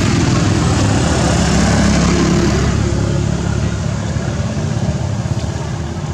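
Motor vehicle engine running close by with a low hum and a wide rushing noise, loudest in the first two or three seconds and then slowly fading.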